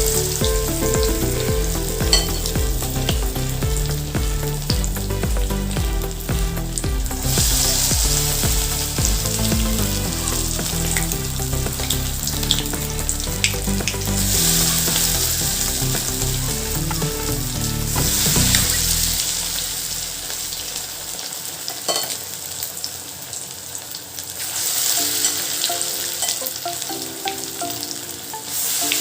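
Chicken pakora pieces in a cornflour and egg batter deep-frying in hot oil: a continuous sizzle that swells louder several times.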